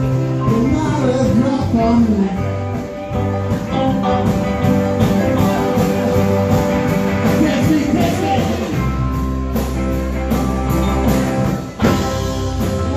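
Live rock band playing: electric guitars, drum kit and keyboard together at full volume. About nine seconds in a low note is held for a couple of seconds, then the band lands on a loud hit near the end.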